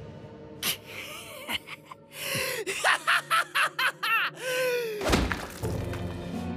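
A man laughing in a run of about six short, sharp laughs that trail off. A sudden noisy hit follows about five seconds in, over a faint music bed.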